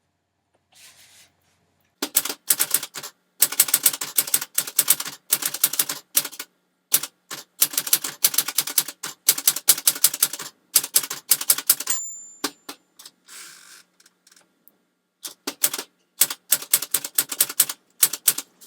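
Typewriter keys striking in quick runs with short pauses between them. About twelve seconds in there is a single short high ring from the typewriter's end-of-line bell, then the typing goes on again after a pause.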